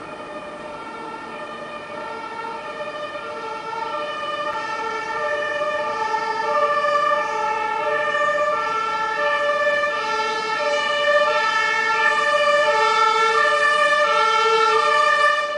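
German two-tone sirens (Martinshorn) on fire engines, high and low notes alternating, with at least two sirens sounding out of step with each other. They grow louder as the engines pass close by, then cut off suddenly at the end.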